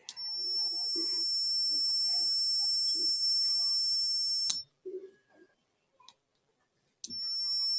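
The buzzer of a homemade fire-alarm circuit going off with a steady, high-pitched electronic tone. It cuts off with a click about four and a half seconds in, then starts sounding again near the end.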